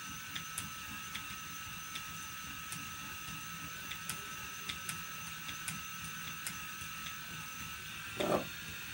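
Phoenix electric spinning wheel running steadily, its motor and spinning flyer giving a steady high whine with irregular light ticks, while short-staple cotton is spun onto it. A brief louder sound comes near the end.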